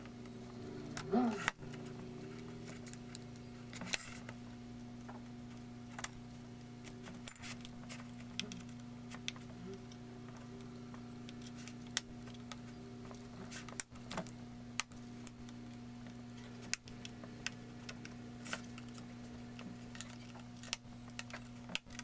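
Scattered light clicks and taps of a metal jeweler's screwdriver prying at the edge of a laptop's plastic bottom cover, at an irregular pace, over a steady low hum.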